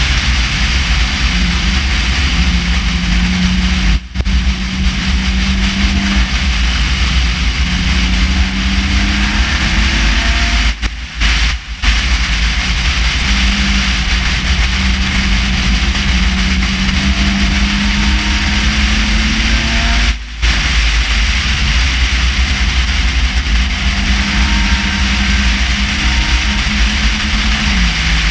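Race car engine at speed, heard onboard over heavy wind and road noise, its note rising slowly through each stretch of throttle. The sound cuts out briefly about four seconds in, twice around eleven seconds, and again around twenty seconds.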